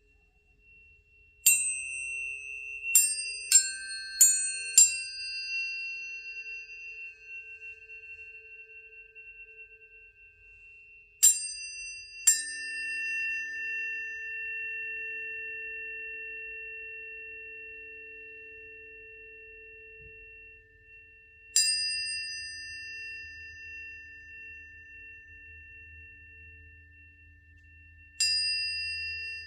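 Tuning forks struck one after another: each strike gives a brief bright clang that settles into a long, pure, slowly fading tone. Five quick strikes come close together near the start, then single strikes follow every several seconds, with two pitches ringing on together.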